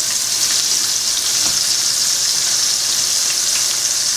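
Flour-dusted venison pieces frying in a pan: a steady sizzle with faint scattered pops of spattering fat.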